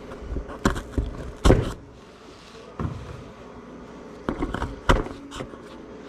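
Tools and steel case bolts knocking and clinking as a motorcycle-type ATV engine case is unbolted by hand: about seven irregular sharp knocks, the loudest about a second and a half in.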